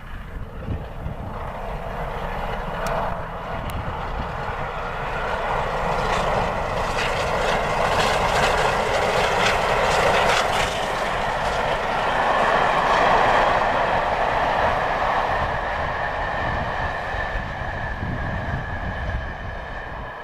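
Steam locomotive passing at speed with its train, a steady noisy roar of exhaust and running gear that builds, peaks in the middle and fades as it goes by.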